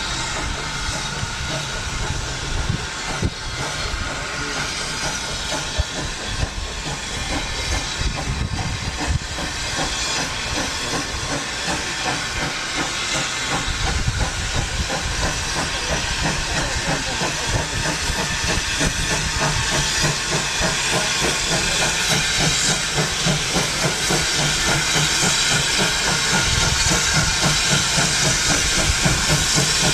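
Steam locomotive working, with a steady hiss of steam that grows gradually louder.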